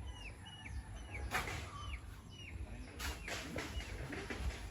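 A bird repeats a short falling chirp about twice a second, stopping about halfway through. Two brief rustles come through a low rumble.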